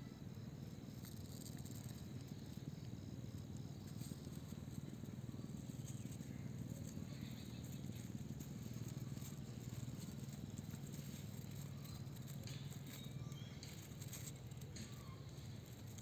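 Faint outdoor field ambience: a steady low rumble, with an insect chirping in a fast even pulse for the first few seconds and scattered light ticks later on.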